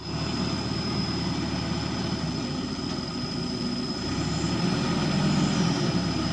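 Truck-mounted crane's engine running steadily, with a thin steady high whine over the low engine sound.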